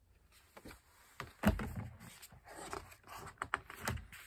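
Pages of a picture book being turned and handled: paper rustling with several sharp knocks and taps, the loudest about one and a half seconds in.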